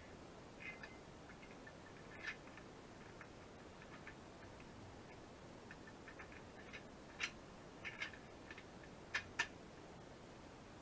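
Sparse, faint clicks and taps of steel parts being handled as green steel loader-arm plates are fitted onto their pins, with a few sharper metal clicks about seven and nine seconds in.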